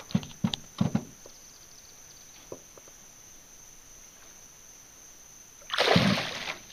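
Largemouth bass splashing hard as it bolts from a hand held at the water's surface beside a boat: one sudden loud splash about a second long near the end. Steady high chirring of crickets runs underneath.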